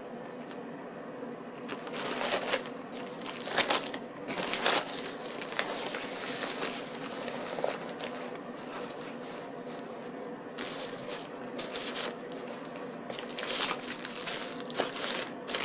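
Close-up chewing of a toasted baguette sandwich: irregular crunches and crackles of crusty bread, with a few louder bites early on and again near the end.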